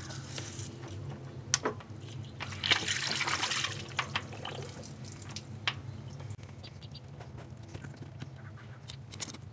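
Engine coolant splashing and trickling out of the intake manifold's sensor port as the coolant temperature sensor is pulled and the new one put in, with a short gush about three seconds in. A few sharp clicks of the sensor and metal parts come through it.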